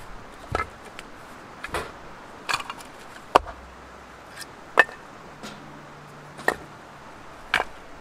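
Split firewood logs knocked together as they are set down one by one onto a stack: about seven sharp wooden knocks, irregularly spaced.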